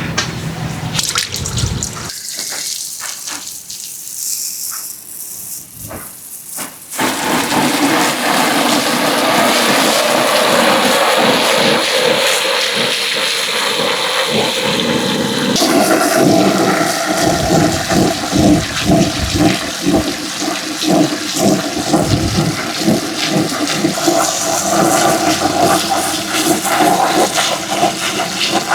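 Marbles running down a handmade marble run: scattered knocks and clicks at first, then from about seven seconds a continuous rushing roll full of small clicks.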